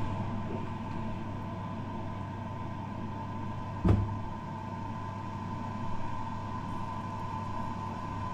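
Steady hum of a kitchen appliance, a low drone with a thin higher tone over it. A single sharp knock about four seconds in, a fork knocking on a china plate while working mushroom slices through flour.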